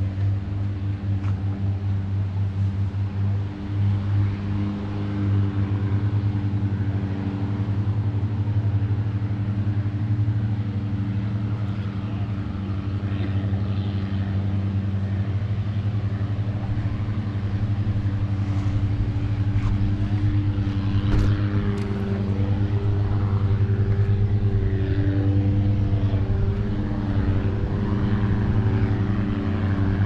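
An engine running steadily at low revs with an even, unchanging drone.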